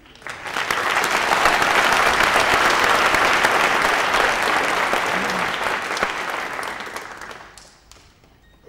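An audience applauding: the clapping breaks out at once, holds steady for several seconds, then dies away near the end.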